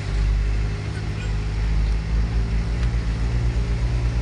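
Isuzu Panther driving, heard from inside the cabin: a steady low engine and road drone. About two seconds in it changes to a more even pulsing throb.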